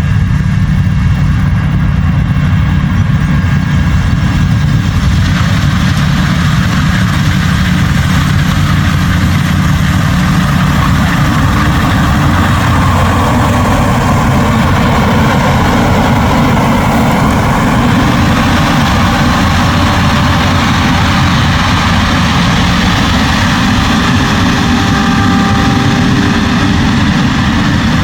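New Holland CR10.90 combine harvester running while threshing barley: a steady, heavy diesel engine drone together with the rush of the threshing and separating machinery. About twelve seconds in, the machinery rush grows louder.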